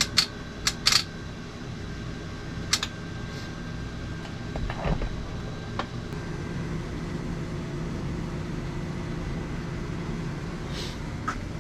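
Steady cooling-fan hum with a few sharp clicks: three close together in the first second, then single clicks about 3, 6 and 11 seconds in.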